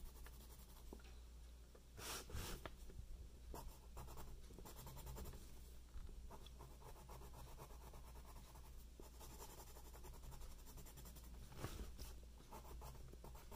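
Pen drawing on paper: faint, continuous scratching of doodle strokes, with a few slightly louder strokes.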